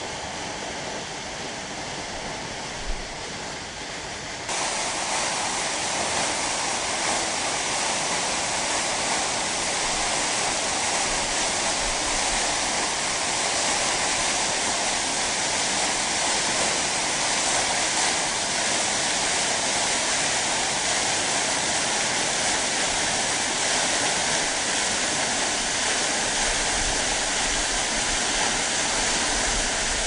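Waterfall: water falling and rushing in a steady roar of noise, which steps up louder and brighter about four and a half seconds in.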